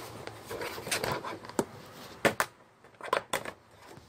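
Shoe organizer panels being handled as their lock tabs are lifted: a string of sharp clicks and knocks, the loudest a pair a little over two seconds in and a quick cluster just after three seconds.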